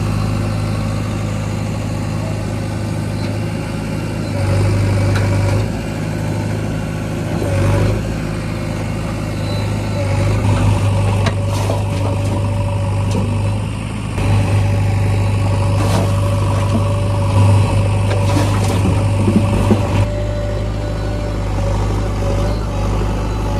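JCB backhoe loader's diesel engine running steadily, getting louder several times as it works, with a few sharp knocks in between.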